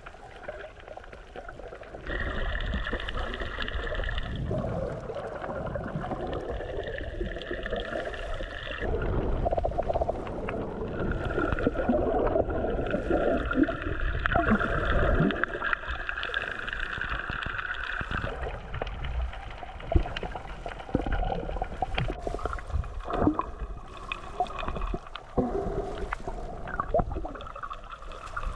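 Muffled underwater sound from a camera held below the surface: a steady low rumble of moving water with gurgling, and a few sharp clicks in the second half.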